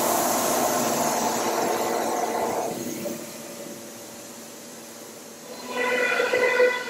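2002 SCM Tech99 CNC router running, a steady mechanical noise that drops away about three seconds in. Near the end a steady whine with several pitches starts as the router bit cuts into the panel.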